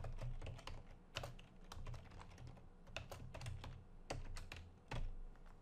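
Typing on a computer keyboard: a run of faint, irregularly spaced key clicks.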